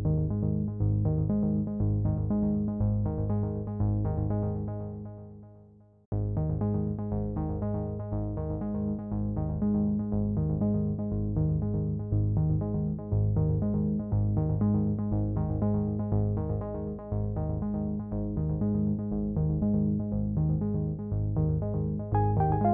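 Background synthesizer music with a steady, repeating rhythm; it fades out about five seconds in and starts again abruptly a second later.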